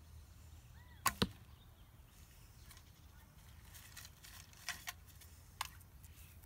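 A 60 lb longbow loosed: two sharp cracks close together about a second in as the string is released and the arrow flies. Lighter clicks follow later as the next arrow is drawn from a back quiver and nocked.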